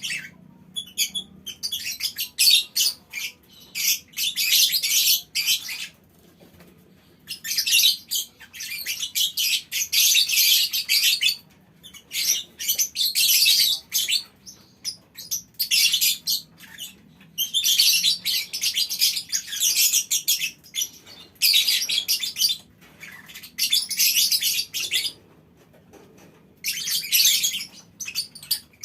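A colony of lovebirds chattering in long, dense high-pitched bursts of one to four seconds each, broken by short pauses: the long chattering song Indonesian keepers call 'ngekek panjang'.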